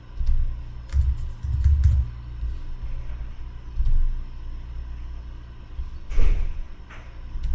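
Computer keyboard typing and mouse clicks, a few light key clicks in the first two seconds and a louder click about six seconds in, over low thumping rumble.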